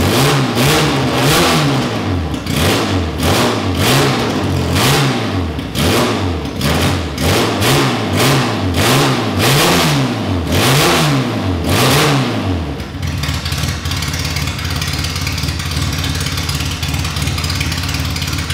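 Specialist Components 1293cc A-series race engine in a classic Mini, with a big carburettor and no exhaust fitted, running on its first start from cold: blipped over and over, the revs snapping up and dropping back in quick succession, free revving. About two-thirds of the way through the blipping stops and it settles into a steady idle.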